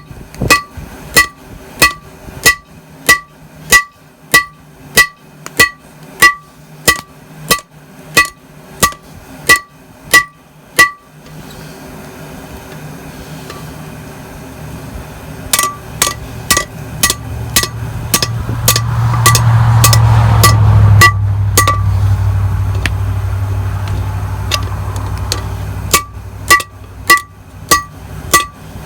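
Hand hammer striking metal on a railroad-track anvil in a steady rhythm of somewhat under two blows a second, each blow ringing with a clear metallic tone. The hammering stops for a few seconds before the middle and then resumes. Partway through, a loud low rumble swells up, peaks, and dies away again before the last run of blows.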